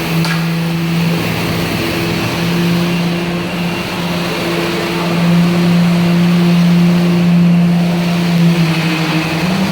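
Steady machine hum of a motor running at one constant pitch, dipping slightly in pitch near the end.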